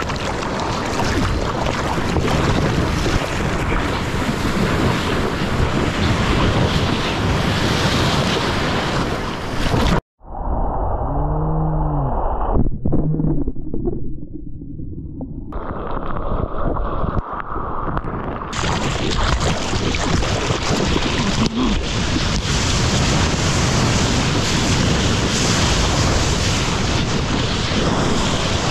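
Ocean surf breaking and washing ashore, with heavy wind buffeting the microphone. About a third of the way in the sound cuts out and goes muffled for several seconds, with a brief low pitched sound rising and falling, before the full wind and surf noise comes back.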